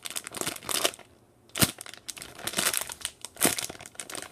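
Clear plastic packaging bag crinkling in fits and starts as fingers squeeze the foam squishy toy sealed inside it, with a short lull about a second in.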